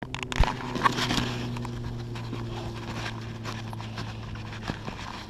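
Handling noise from a camera being picked up and set up, with scattered knocks, clicks and rubbing, over a steady low hum.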